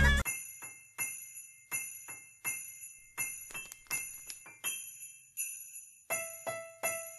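Jingle bells shaken on a steady beat, about one shake every 0.7 seconds, each ringing high and dying away. From about six seconds in, a lower pitched note sounds with each shake.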